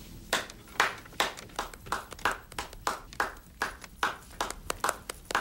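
Hands clapping: a steady run of separate, distinct claps, about three a second.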